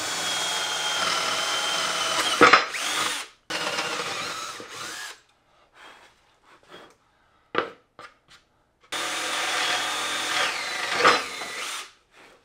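Ryobi cordless drill boring holes through a plywood panel: a steady whining run of about three seconds, a shorter run straight after, then a pause with a few light knocks before a second long run whose pitch drops near the end.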